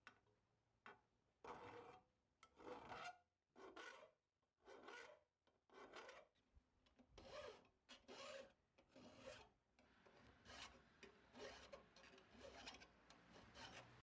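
Hand file rasping in about a dozen back-and-forth strokes, roughly one a second, along the edge of a sheet-metal bracket, deburring it to take off the sharp edges.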